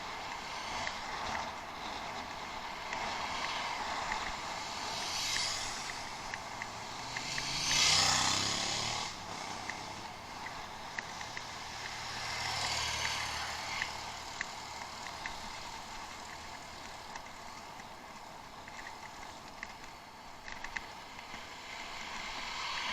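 Riding noise from a bicycle ride recorded on a head-mounted action camera: wind rushing over the microphone and tyres rolling, with small scattered clicks and rattles from the bike. The rush swells several times, most strongly about eight seconds in, with a low rumble after it.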